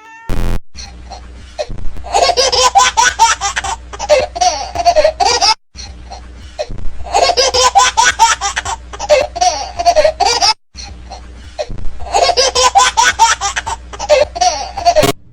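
A person laughing hard in rapid bursts. The same stretch of about five seconds plays three times, each cut off by a brief drop to silence.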